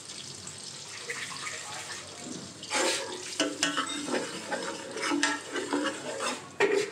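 Metal ladle stirring masala gravy in a large aluminium pot over the heat, the gravy sizzling. From about three seconds in come many scrapes and clinks of the ladle against the pot, while water is poured in from a jug.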